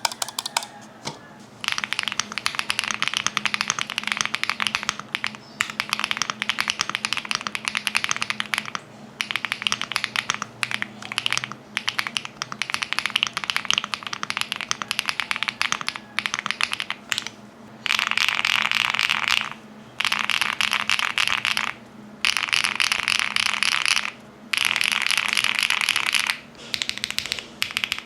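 Shortcut Studio Bridge75 mechanical keyboard being typed on quickly: dense runs of key clacks lasting a second or several, with short pauses between. In the second half the runs become shorter and more even.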